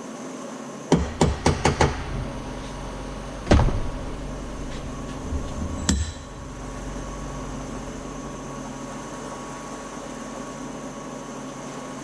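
Hammer striking a metal punch: a quick run of five sharp strikes about a second in, then a single harder strike, then a lighter metallic knock with a brief ring. The strikes are driving a pressed-in part out of an engine's fuel control rack, over a steady hum.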